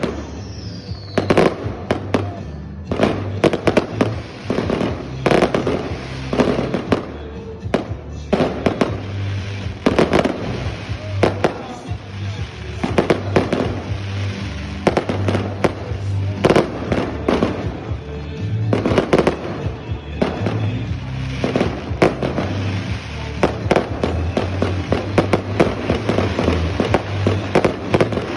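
An aerial fireworks display: shells bursting overhead in rapid, irregular bangs with crackling, many close together throughout.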